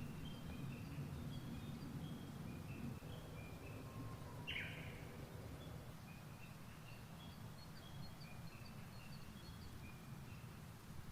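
Small songbirds chirping: short high notes repeated throughout, with one louder falling call about four and a half seconds in, over a low steady outdoor background rumble.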